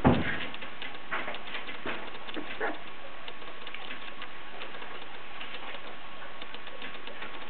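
Three-week-old basenji puppies making short soft grunts and squeaks, a few in the first three seconds, with many faint small clicks and scuffles as they crawl over each other. A single thump right at the start is the loudest sound.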